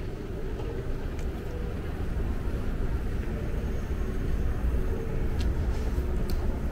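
Low rumble of street traffic, a vehicle engine slowly growing a little louder, with a few faint clicks.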